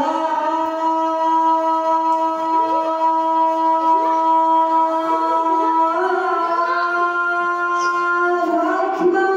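A man's voice chanting the azan, the Islamic call to prayer, holding one long note for about eight seconds. The pitch shifts near the end.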